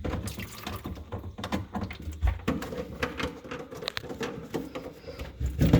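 Irregular clicks, knocks and rattles of drain pipe parts being handled during a garbage disposal swap.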